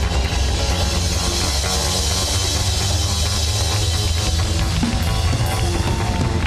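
Live soukous band playing, with the drum kit busy on drums and cymbals over a steady, heavy bass line.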